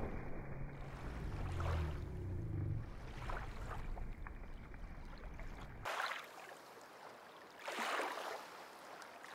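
Lake water lapping and splashing against a dock, with a low wind rumble on the microphone that cuts off abruptly about six seconds in. After that, a couple of soft water swishes remain.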